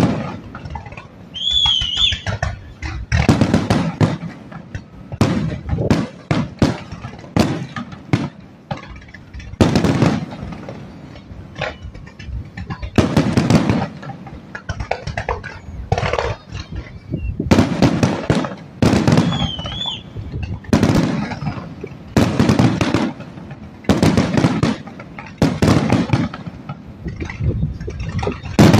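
Fireworks display: shells and fountain bursts going off in quick, irregular succession, a loud bang about every second with crackling between. A short warbling whistle sounds twice, near the start and about two-thirds of the way through.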